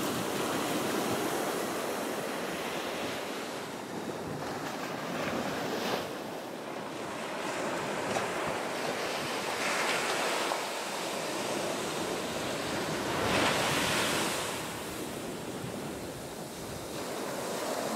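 Ocean surf breaking and washing up a sandy beach, swelling louder twice in the second half, with wind buffeting the microphone.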